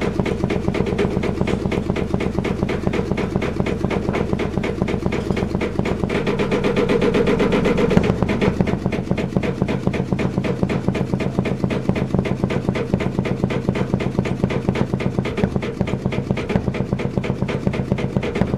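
Old stationary engine with large spoked flywheels running, with a fast, even mechanical beat. About six seconds in it grows louder and takes on a steadier tone for a couple of seconds, ending in a sharp knock, then goes back to the same even beat.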